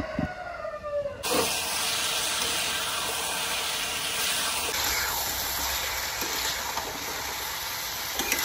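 A rooster's crow trails off in the first second. Then chopped bottle gourd sizzles steadily as it fries in oil in a kadai, stirred with a metal spatula.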